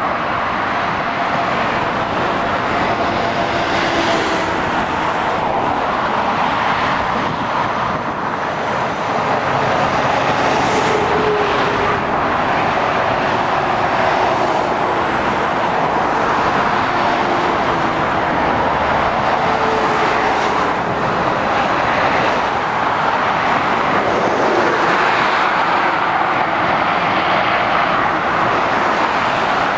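Steady traffic noise of heavy lorries and cars passing on a motorway: tyre noise mixed with diesel truck engines, without a break.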